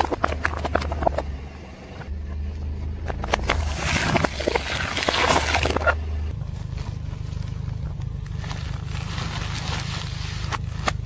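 Car tyre rolling slowly over objects and crushing them, over a low idling engine. Sharp cracks come in the first second or so, then a longer dense crunching and crackling from about three to six seconds in. After that the engine note changes and only a faint rustle remains.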